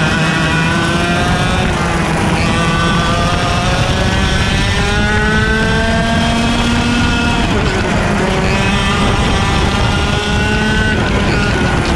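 IAME X30 125cc two-stroke kart engine under racing load, its note climbing in long sweeps and dropping back sharply three times (about 2, 7.5 and 11 seconds in) as the kart accelerates out of corners and lifts for the next one. Wind rushes over the onboard camera.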